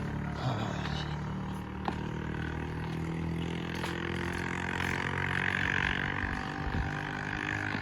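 A motor vehicle's engine running steadily, with a higher-pitched noise swelling in the second half.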